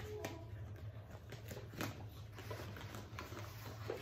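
Cardboard sleeve and clear plastic case of a camera's retail box being handled and slid apart: scattered crinkles, rustles and light clicks. A steady low hum runs underneath.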